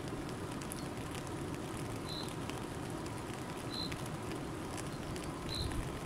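Flowing river water rushing steadily, with a bird giving three short high chirps evenly spaced less than two seconds apart.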